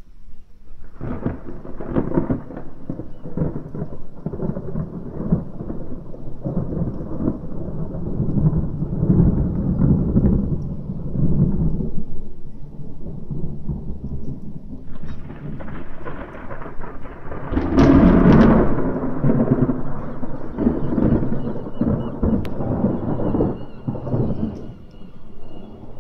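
Long peal of rolling thunder from a severe thunderstorm, starting about a second in and rumbling for over twenty seconds. A second, sharper crack comes about fifteen seconds in and builds to the loudest point a few seconds later before dying away near the end.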